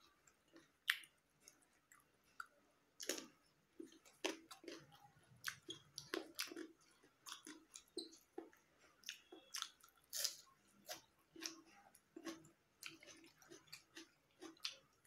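A person chewing a mouthful of rice and boiled egg eaten by hand, with irregular mouth clicks and smacks, several a second, starting more densely about three seconds in.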